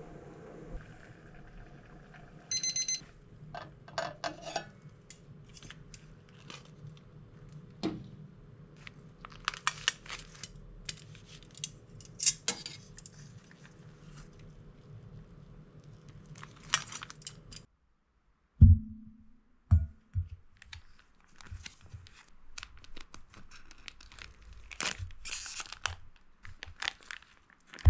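A digital kitchen timer gives a short pulsing beep near the start. A plastic food pouch then rustles and clatters as it is handled with metal tongs in a pot, over a steady low hum. After a sudden break comes a single thump, then the crinkling and tearing of the plastic pouch being torn open.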